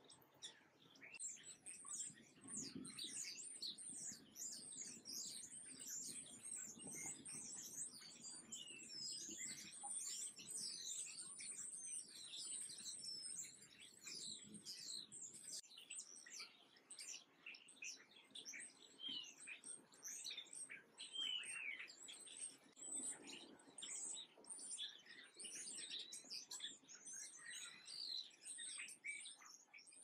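A chorus of small songbirds, house sparrows and house finches, chirping continuously: many short, high chirps and quick falling notes overlapping, with hardly a gap.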